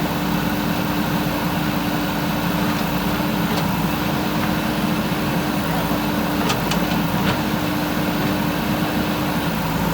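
JCB 3DX backhoe loader's diesel engine running at a steady speed, a constant hum with a held tone, with a few faint clicks about two-thirds of the way through.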